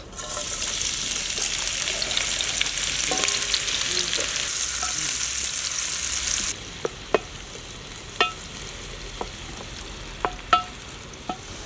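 Sliced onions sizzling in hot oil in a metal pan as they are stirred with a wooden spoon. The sizzle stops abruptly about six and a half seconds in, and a few short, sharp chirps follow.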